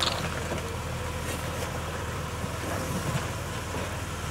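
Jeep Wrangler engine running low and steady as it crawls over rocks, with a few faint clicks.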